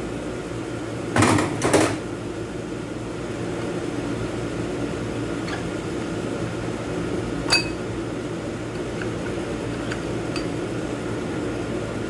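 Metal clinking and clattering of hand tools and parts as the underdrive piston's retainer spring is pried out of an automatic transmission case, over a steady hum. Two louder rattles come about a second in, with a single sharp click later and a few light ticks.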